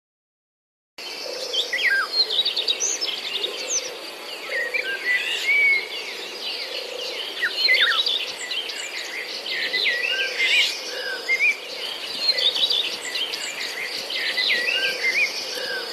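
Many songbirds chirping and whistling together in a busy chorus that starts about a second in.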